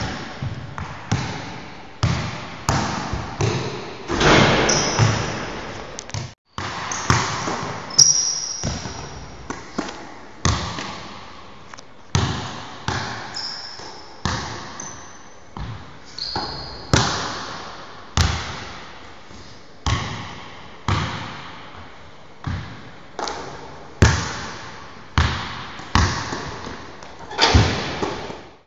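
A basketball dribbled on a hardwood gym floor, about one bounce a second, each bounce echoing through the large hall. A few short, high sneaker squeaks come in between, and the sound cuts out for a moment about six seconds in.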